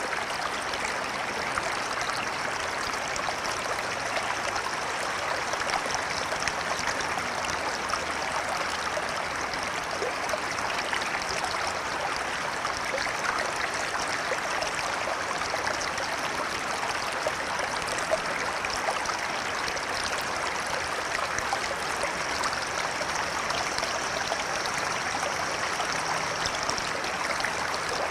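A flowing river: a steady, even rush of moving water with no breaks.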